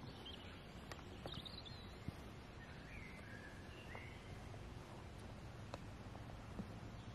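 Quiet outdoor ambience with a few bird chirps, and a faint click of an iron striking a golf ball on a chip shot near the end.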